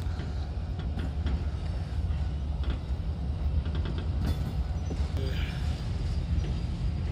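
Passenger train carriage heard from on board while the train runs: a steady low rumble with scattered clicks and knocks.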